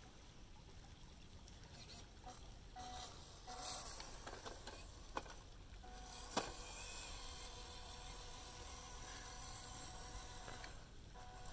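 WPL D-42 RC crawler van driving over ice: a faint steady whir from its electric motor and gears with scattered crackling ticks from the tyres, over a steady hiss of running water. One sharp click about six seconds in.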